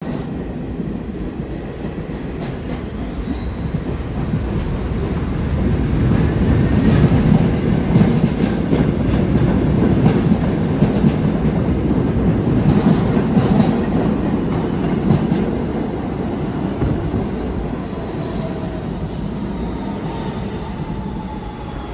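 R160B subway train with Siemens propulsion arriving at a station: its wheels rumble and clack over the rail joints, loudest in the middle, then ease off as it slows. Near the end a falling whine comes from the train as it brakes.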